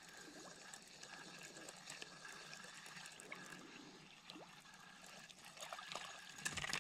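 Spinning reel being cranked to retrieve a lure, with a faint whirr and scattered small ticks, as a small hooked fish is reeled in. A few louder clicks come near the end.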